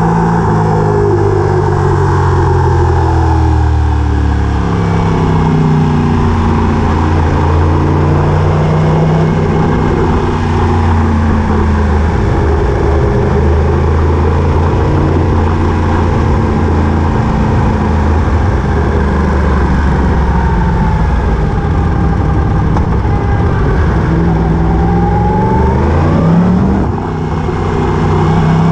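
A vehicle engine running under way, its pitch slowly rising and falling as it speeds up and slows down, over a steady rush of road or wind noise.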